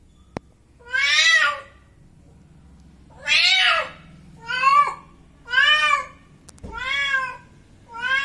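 Kittens meowing: six separate meows, each rising then falling in pitch, coming about once a second from about a second in. A single sharp click about half a second in.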